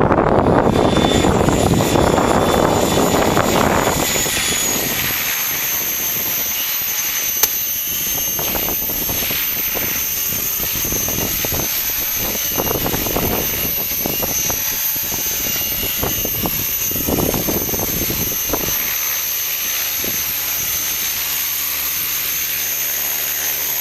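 T-Rex 550 RC helicopter flying, with a steady high whine throughout. Wind buffets the microphone heavily for the first few seconds and in gusts after that.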